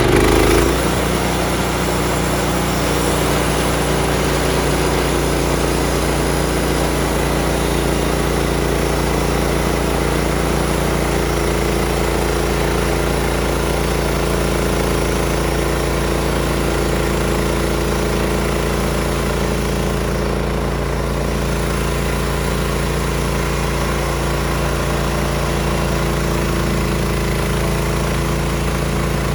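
Gas engine of a Woodland Mills HM126 portable band sawmill, throttled up right at the start and then running steadily.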